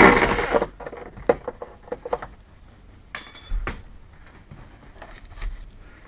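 Workshop handling sounds: a short rasping noise at the start, then scattered small knocks and clicks, with one bright metallic clink a little over three seconds in.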